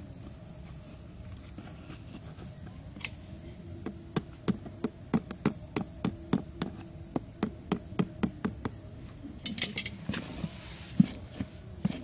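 A small hatchet tapping quickly around the edge of a round lid that covers a hole in sandy soil, about three light knocks a second for several seconds, then a few scattered knocks.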